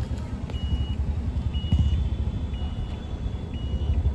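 A high electronic beep repeating about once a second, each beep short and on one pitch, over a steady low rumble.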